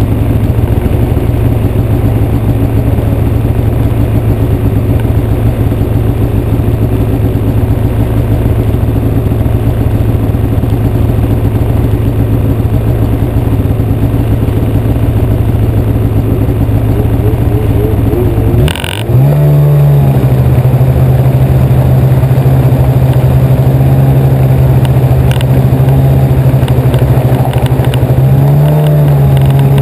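Snowmobile engine idling steadily. About two-thirds of the way through it briefly drops, then revs up and runs at a higher steady pitch while the sled moves along the snow.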